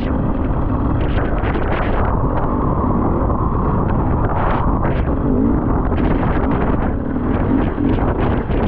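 Heavy wind buffeting on the microphone over an enduro motorcycle engine, its pitch rising and falling as it is ridden.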